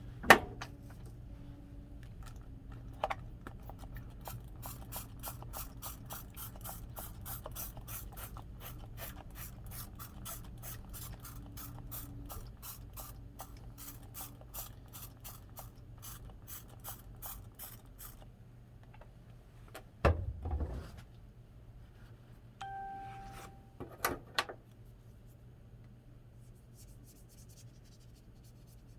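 Rhythmic scrubbing strokes, about three a second, cleaning uncured resin off a 3D-printed resin part. They stop after about 18 seconds, followed by a few knocks and a brief metallic ring.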